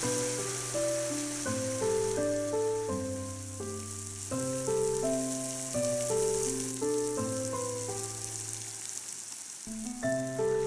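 Background music: a melody of short steady held notes stepping up and down over a sustained low bass note, with a steady hiss underneath.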